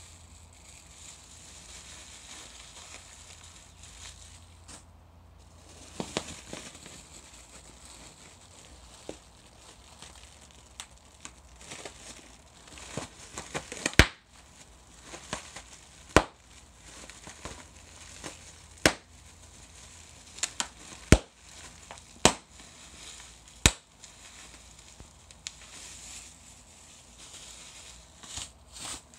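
Plastic bubble wrap being twisted and squeezed by hand: steady crinkling with single sharp pops of bursting bubbles. The pops are scattered at first, then come as a run of loud ones a second or two apart through the second half.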